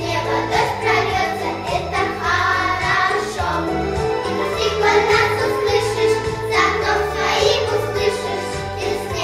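Children singing a song together, with instrumental accompaniment underneath.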